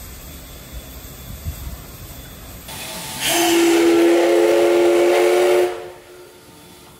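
The steam whistle of the DT668 steam locomotive gives one long, steady blast lasting about two and a half seconds. It is preceded by a short hiss of steam as the whistle valve opens.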